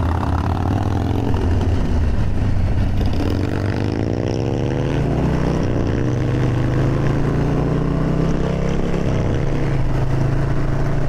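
Harley-Davidson Street Bob's V-twin engine accelerating from a stop, heard from the rider's seat with wind noise. Its pitch climbs, drops at an upshift about halfway through, then climbs again.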